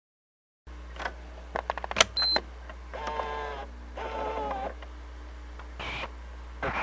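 Sound effects: a quick run of clicks and a sharp click with a short high electronic beep, then two buzzy held tones of about half a second each, over a steady low hum.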